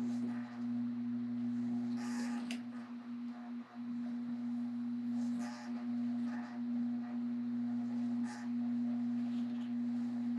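A steady electrical hum, with a few faint rustles and ticks as thread is handled on the rod blank.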